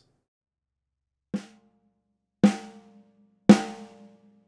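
A single snare drum struck three times, about a second apart, each hit louder than the last. Each hit rings on with a pitched tone that fades before the next.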